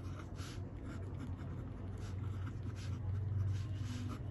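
Pen writing on paper: a few short scratchy strokes as numbers and symbols are written, over a steady low hum.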